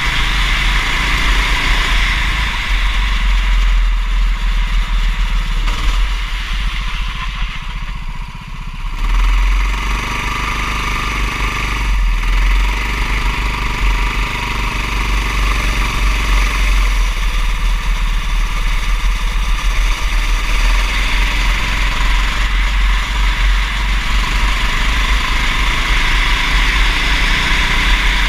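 Racing kart engine under load, its pitch rising and falling as the throttle is worked through corners. It drops off about eight seconds in, as if lifting for a corner, then climbs again in several rising sweeps, over a steady hiss.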